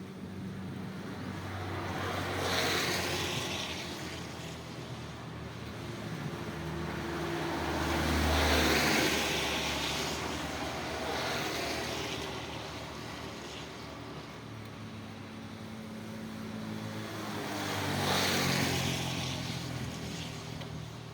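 Road vehicles passing one after another on a wet road in the rain: three passes about 2, 8 and 18 seconds in, each a hiss that swells and fades with a low engine hum, over a steady background of rain.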